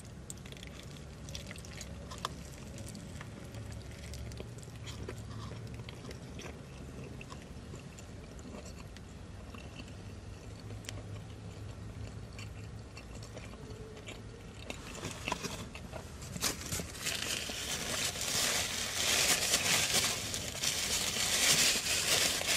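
Close-up chewing of a brisket sandwich topped with crispy fried onions: quiet, soft mouth sounds with small clicks at first, then much louder crunchy biting and chewing from about fifteen seconds in.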